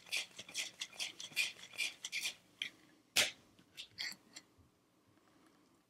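Cocktail shaking tin being dry-shaken with gin, syrup, lime juice and egg white but no ice: fast, even sloshing strokes that stop a little over two seconds in. They are followed by one sharp knock and a few light clicks.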